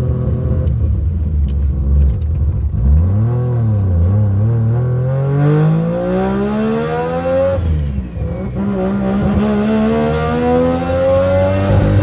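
Turbocharged three-rotor rotary engine in a Mazda RX-7, heard from inside the cabin, accelerating hard. The pitch climbs steadily for several seconds, drops sharply at a gear change about eight seconds in, then climbs again in the next gear.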